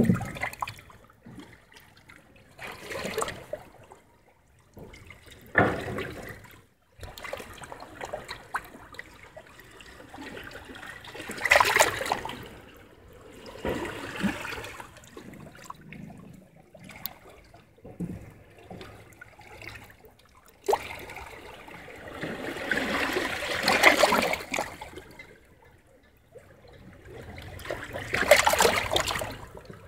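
Small sea waves washing over wet lava rocks: a splashing, trickling surge every few seconds that swells and drains away. The biggest surges come a little before halfway, past two-thirds and near the end.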